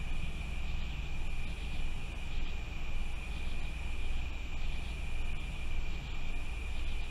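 Steady night-time outdoor background noise: a low rumble with a continuous high-pitched whine over it.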